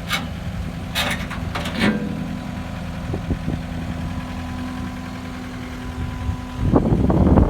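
Kubota SSV75 skid steer's diesel engine idling steadily, with a few short sharp noises in the first two seconds. Near the end, gusty wind noise on the microphone rises over it.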